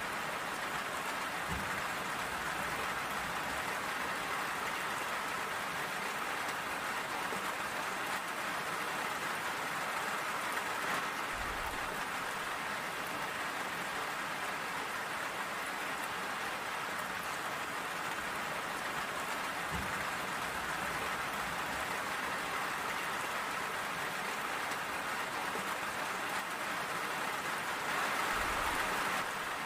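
Steady rain falling, an even hiss, with a few brief low thumps spread through it.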